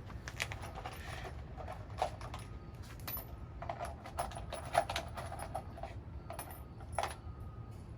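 Loose salvaged nails clinking and rattling as they are handled, a run of irregular light clicks and knocks with the loudest a little under five seconds in.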